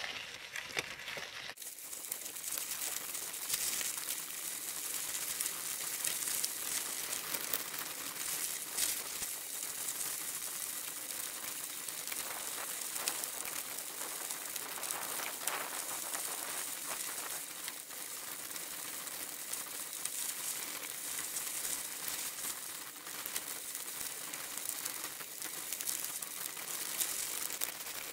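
Bicycle tyres rolling over a loose gravel track: a steady crackling crunch of small stones, which grows louder about a second and a half in.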